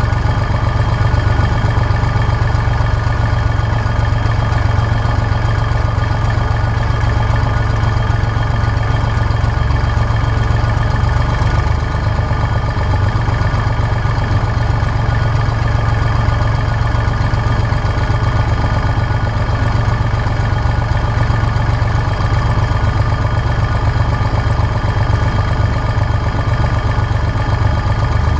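Tractor engine running steadily as the tractor drives along, heard close up from its own bonnet. The engine note stays at a constant pitch with no change in revs.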